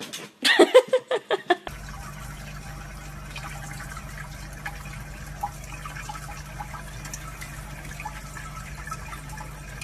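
A short burst of loud pitched sound, then from about two seconds in a faucet's thin stream of tap water running steadily onto a cat's head, over a steady low hum.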